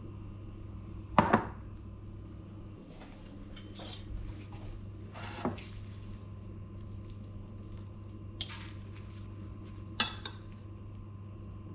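White ceramic plate set down on a kitchen countertop with a knock about a second in, then a metal fork and spoon clinking and scraping against the plate a few times, loudest near the end. A steady low hum runs underneath.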